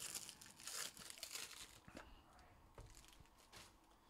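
Faint crinkling and rustling of plastic being handled, mostly in the first two seconds, followed by a few light clicks.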